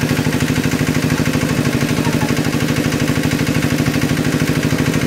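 Engine of a water pump running steadily with a fast, even pulse, draining the pond.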